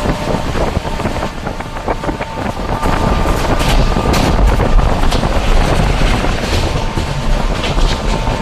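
Train running along the track: a steady loud rumble with sharp clicks now and then and a faint steady whine.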